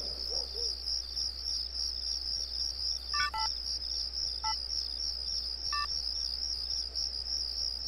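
Crickets chirring steadily, with a mobile phone's keypad beeping four times as a number is dialled: two quick beeps a little after three seconds in, then single beeps at about four and a half and six seconds.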